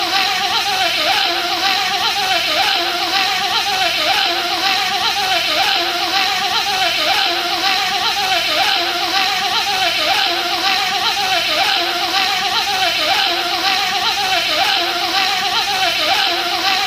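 A man imitating a bee with his voice: a loud, unbroken high buzz that wavers up and down in pitch in a regular, repeating pattern.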